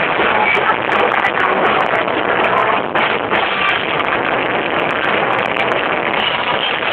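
Live rock band playing loud, with electric guitar and drums, recorded close up on a phone that distorts it into a dense, muddy wash with a steady level.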